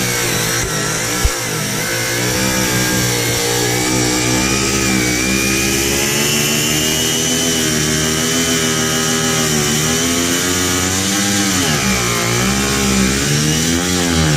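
Angle grinder with a cut-off disc cutting through aluminum wall sheet, a steady high motor whine whose pitch sags as the disc loads in the cut and then recovers, twice in the second half. A single sharp click about a second in.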